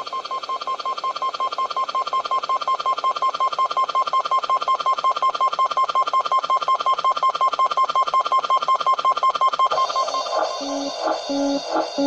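Kawai MS710 personal keyboard sounding one high electronic note that retriggers rapidly and evenly, several times a second, like a beeping tone. About ten seconds in, this gives way to a pattern of separate lower notes.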